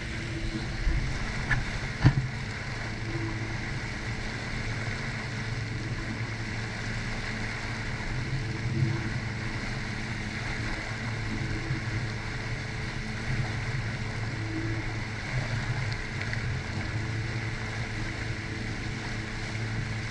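Jet ski engine running at a steady low drone at slow, no-wake speed, with a couple of brief knocks about two seconds in.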